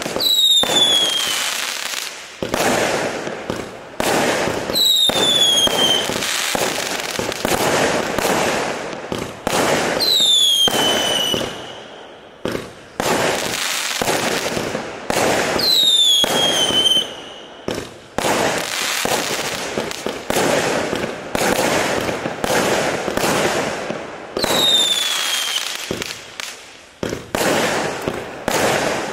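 A 0.6-inch, 100-shot fireworks cake firing a rapid, continuous string of shots and bursts. About every five seconds a falling whistle lasting about a second rides over the bangs.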